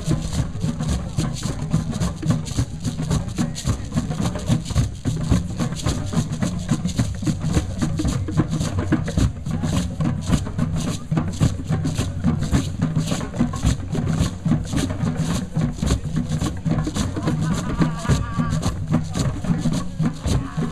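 A drum circle: many hand drums played together in a steady, fast, dense rhythm.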